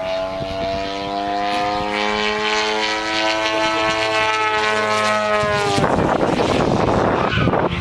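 Radio-controlled model airplane in flight, giving a steady many-toned howl that sinks slowly in pitch. The fliers put this noise down to the gap under the ailerons at their seamless hinges. From about six seconds in, a rough rushing noise takes over.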